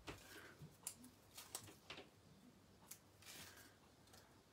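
Faint paper handling as die-cut paper leaves are slid onto glue dots on a card: a few scattered light clicks and taps, with a brief rustle about three seconds in.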